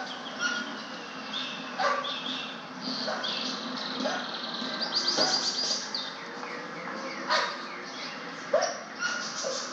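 Several dogs barking and yipping at irregular intervals.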